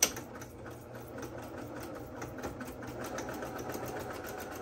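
Electric sewing machine stitching a seam through fabric at a steady speed: a rapid, even run of needle strokes. A sharp click comes at the very start.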